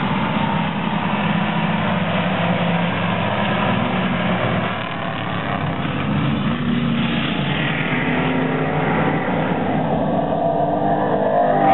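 A pack of short-track stock cars running around an oval, their engines blending into one steady drone with the pitch bending a little as they go through the turns.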